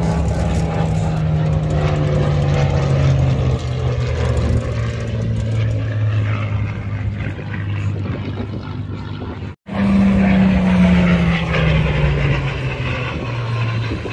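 Piston-engined vintage fighter aircraft flying past low, a strong engine drone that slowly drops in pitch as it goes by. The sound breaks off for an instant about two-thirds of the way through and comes back on a higher note that falls again.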